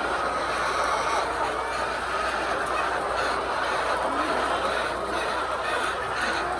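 A large flock of laying hens calling continuously, many clucks overlapping into a dense, steady chatter.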